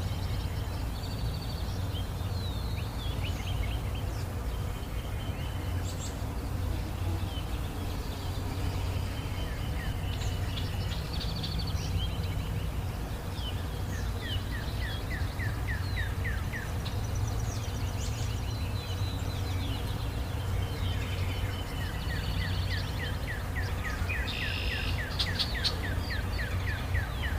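Several songbirds calling and singing over a steady low hum. A rapid run of repeated notes comes in about halfway through and again near the end.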